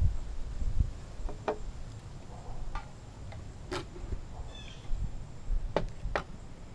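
Outdoor ambience with a few sharp clicks and knocks, two of them close together near the end as a metal can is handled on a glass tabletop, and a short bird chirp about two-thirds of the way through, over a low rumble.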